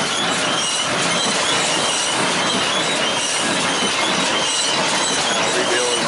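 Tractor and hay-working machinery running with a steady mechanical clatter and faint high squeaks.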